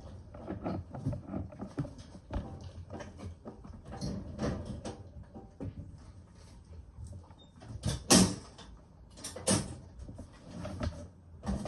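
Irregular footsteps and small knocks and clatters of a person moving about the room, with two louder rattling clatters about 8 and 9.5 seconds in.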